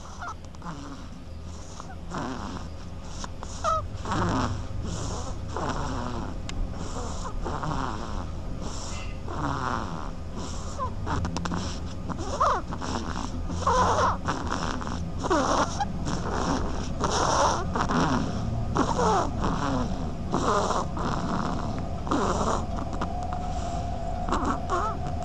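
A sleeping duck snoring: a steady run of short, breathy snores, a little under a second apart, some with a squeaky falling whistle, growing louder a couple of seconds in.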